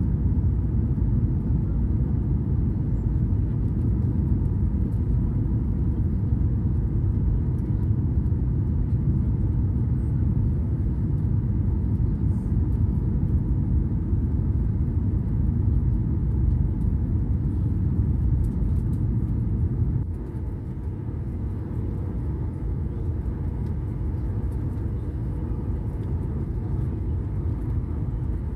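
Steady low rumble of a Boeing 737 airliner's jet engines and airflow heard inside the passenger cabin during the descent on final approach. The level drops a little about twenty seconds in and holds steady after.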